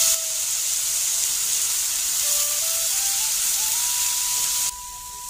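Loud sizzling hiss of wet, freshly soaked fenugreek (methi) leaves hitting hot oil and fried spice masala in a kadhai. The sizzle drops suddenly near the end, under a slow single-note background melody.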